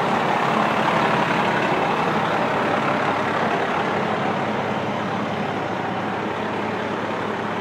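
Diesel engine of an FDNY tower ladder fire truck idling steadily up close, a low even hum under a broad rushing noise.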